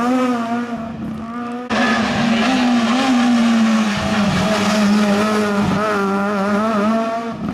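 Renault Clio rally car's engine revving hard through a bend, its pitch rising and falling as the driver works the throttle and gears. The sound jumps abruptly just under two seconds in to a louder pass of the car.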